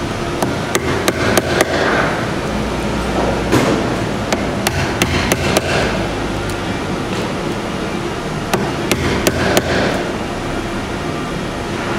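Mallet striking the handle of a Rali Shark wood chisel, chopping a mortise in a block of wood. Sharp taps come in quick runs of three to five, with short pauses between the runs.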